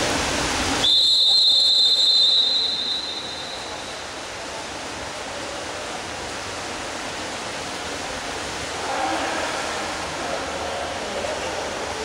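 A referee's whistle gives one long, steady, high blast lasting about three seconds, starting about a second in after a brief rush of noise. After it comes the echoing noise of a pool hall with splashing water and faint voices.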